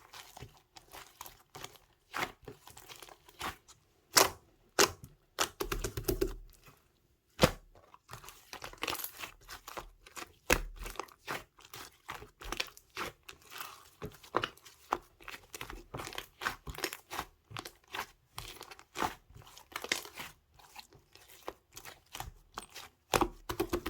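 Clear slime being squished and worked by hand, giving a dense, irregular run of sticky pops and crackles.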